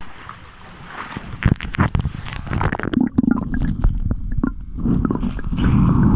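Low, uneven rumbling with irregular crackles and knocks, loudest in the middle and again near the end: wind buffeting a phone's microphone, with handling noise.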